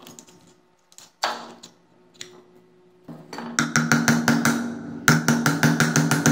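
Fast hammer blows on a steel drift set in the bearing hole of a blower motor's aluminium end cap, driving the cap onto the motor housing, which rings with each blow. One blow about a second in, then a quick run of taps from about three and a half seconds, several a second.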